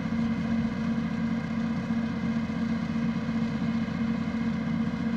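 Truck-mounted crane's engine running at a steady speed, with a strong, steady low hum.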